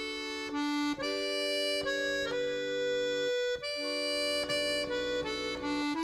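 Background folk music: an accordion playing a tune in held, reedy notes, with no singing.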